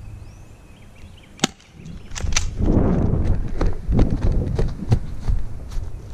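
Sharp snaps of airsoft pistol shots, a single one about one and a half seconds in and more from about two seconds on, among rustling and knocking from movement close to the microphone.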